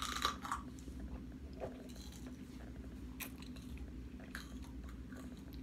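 Two people biting into raw red hot peppers and chewing them. There is a crisp crunch at the bite about half a second in, then faint, scattered chewing clicks.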